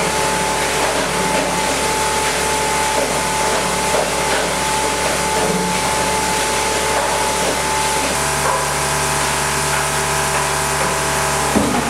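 Dreher S 34/52 SRV plastics granulator running empty, a steady mechanical hum and whine with a few held tones. The motor is drawing only about 20 A, so the mill is not yet cutting. The tones shift about eight seconds in, and there is a single knock near the end.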